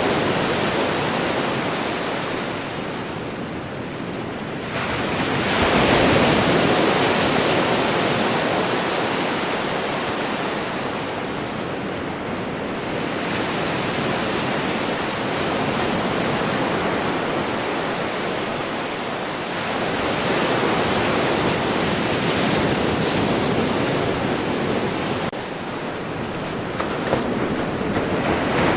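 Sea waves breaking on a shore: a continuous wash of surf that swells and eases, with a fresh wave surging in about five seconds in and the wash dropping briefly near the end.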